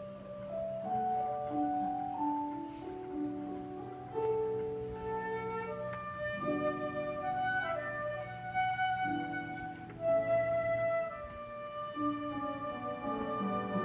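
Slow hymn tune played on a melody instrument over sustained keyboard accompaniment, the melody moving in held notes.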